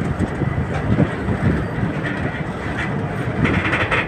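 Freight train of covered goods wagons rolling past at speed: a steady rumble of steel wheels on rail, with a run of wheel clatter near the end.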